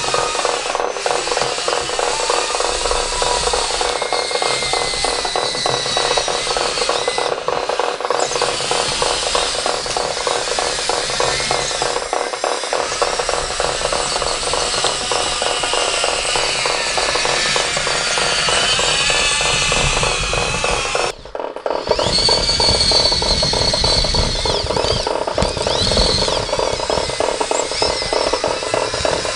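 Small electric motors and gearboxes of radio-controlled scale construction machines working: a steady whir with a whine that rises and falls, over a dense, fast rattle of gears. The sound cuts out briefly about two-thirds of the way through.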